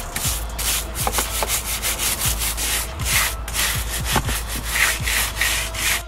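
Scrubbing strokes wiping dust and dirt off a dirt bike's swingarm: a quick, uneven run of rough rubbing, about two or three strokes a second.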